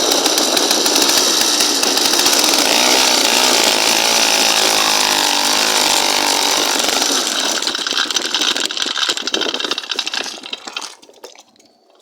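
Motorized bicycle's small engine running hard with a chainsaw-like buzz, its pitch wavering in the middle, then sputtering and dying out near the end.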